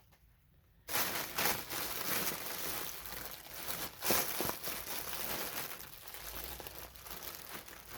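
Packaging wrapped around yarn rustling and crinkling as it is handled and opened, starting about a second in after a brief silence, with many small irregular crackles.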